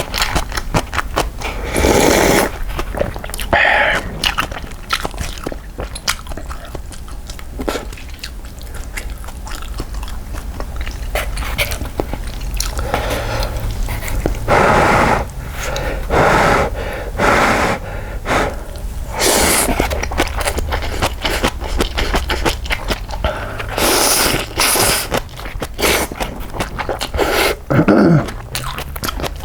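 Close-miked eating of instant cup ramen: wet chewing and mouth clicks, broken several times by louder slurps of noodles.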